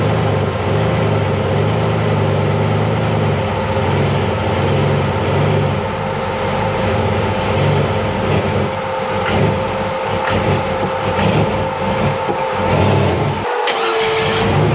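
Rock crawler buggy's engine running at low revs under load as it crawls up a rock obstacle, with a steady whine above the engine note and occasional knocks. Near the end the low engine note drops away and a short hiss is heard.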